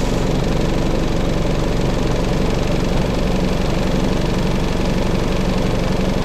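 2005 Isuzu D-Max's 3.0-litre four-cylinder turbo-diesel idling steadily, just started on its newly replaced starter motor.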